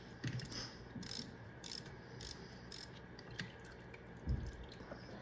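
3/8-inch ratchet clicking in short bursts, about half a second apart, as it loosens the long bolt that holds the motorcycle's oil filter, with a few dull knocks of the tool in between.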